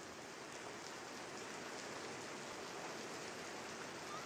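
Steady hiss of falling rain.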